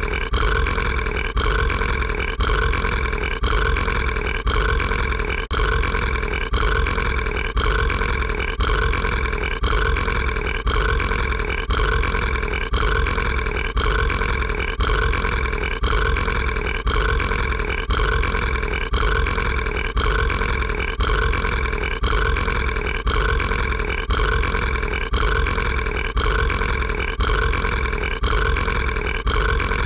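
A cartoon monster's long, drawn-out burp with a steady pitch. A short stretch of it is looped over and over, repeating in identical cycles about three times every two seconds.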